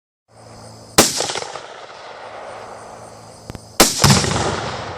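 Rifle fire at a tannerite charge packed into a rotten tree: a sharp crack about a second in, then almost three seconds later another crack followed straight away by the heavier boom of the tannerite detonating, with a low rumbling tail.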